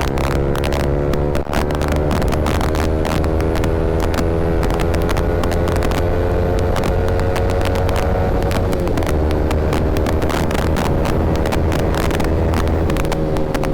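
Yamaha R15 V3's single-cylinder engine through an Akrapovic R9 aftermarket exhaust, held at a steady high cruising speed. The pitch dips briefly about nine seconds in, then picks up again.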